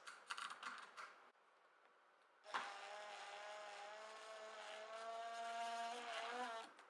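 Electric drill running for about four seconds as it drives the lock's mounting bolts, its pitch steady, then rising a little and wavering before it stops. A few light clicks come before it.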